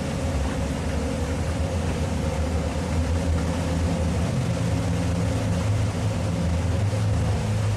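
Twin Suzuki outboard motors running steadily under load while towing a sailboat, their note rising slightly about halfway through. Wind on the microphone and rushing wake water over the engines.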